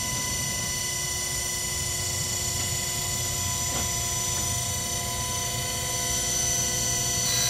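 Harig 612 surface grinder's 3 HP spindle motor and grinding wheel running steadily, a hum with a steady whine of several fixed tones, which the seller says sounds really good. Near the end it grows a little louder and a brighter hiss joins as the wheel takes the test grind.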